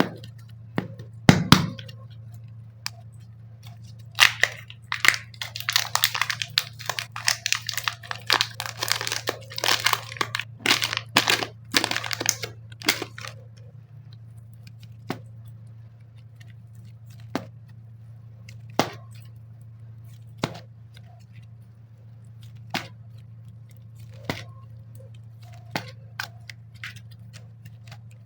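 Clay packaging being unwrapped: a stretch of crackling and crinkling as plastic wrapping is torn and handled, then single sharp clicks every second or two, over a steady low hum.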